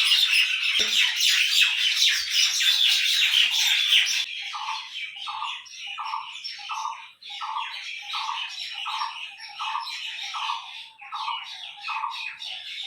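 Birds chirping: a dense chatter of many birds for about four seconds, then one bird repeating a short falling call about twice a second while others chirp faintly.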